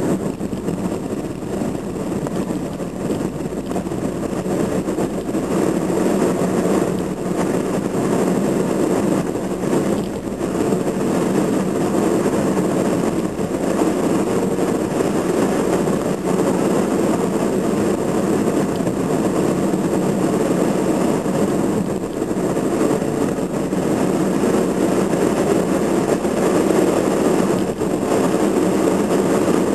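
Car interior noise while driving steadily: the engine hum and tyre rumble of the car, heard from inside the cabin.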